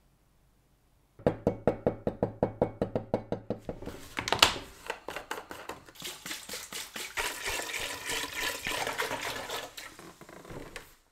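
White vinegar poured from a plastic jug into a glass tank of metal parts. It starts with rapid, even glugging, about seven glugs a second, then turns into a steady splashing pour that cuts off just before the end.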